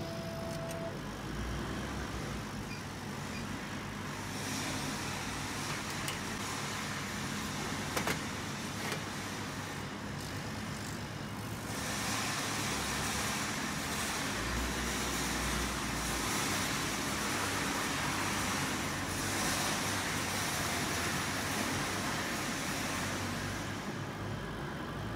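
Steady hum and hiss of a running CO2 laser cutter with its auxiliary equipment, getting louder from about halfway through, with a single sharp click about eight seconds in.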